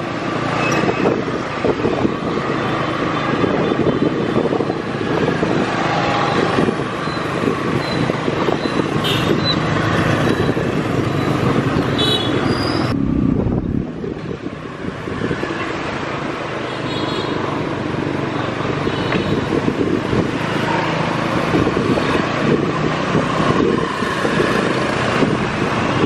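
Busy street traffic dominated by motorbike engines, heard while moving along the road, steady throughout.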